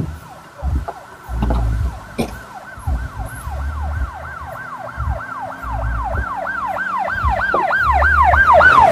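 A siren sounding in rapid falling sweeps, about three a second, growing louder toward the end, over an intermittent low rumble.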